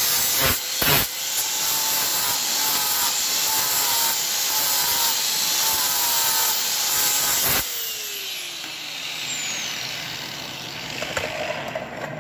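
Electric angle grinder grinding down welds on curved steel box section, a harsh grinding noise with a wavering whine. About seven and a half seconds in it comes off the steel and is switched off, its whine falling as the disc spins down. A few light knocks follow near the end.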